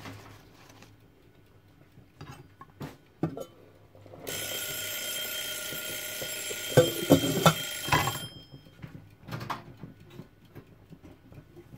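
Spare ribs sizzling in a stainless steel pot, heard for about four seconds while the lid is off, a steady hiss with a high ringing edge that cuts off abruptly when the lid goes back on. Tongs clatter against the pot several times near the end of the sizzle.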